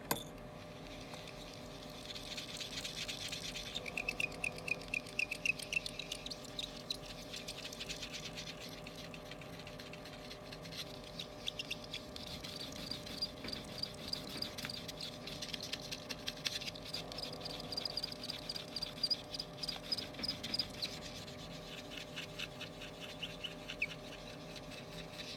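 Melamine sponge rubbed rapidly back and forth over the glass of an iPhone LCD panel, scrubbing off leftover polariser glue. It makes several spells of quick, high squeaky rubbing strokes.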